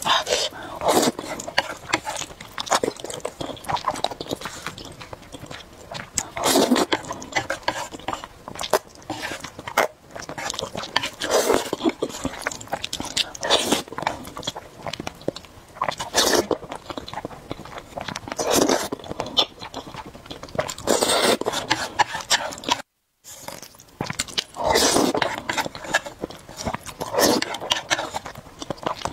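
Close-miked slurping and chewing of spicy instant noodles in thick, sticky sauce: a wet slurp every two or three seconds with smacking chewing clicks in between. The sound drops out completely for a moment about three quarters of the way through.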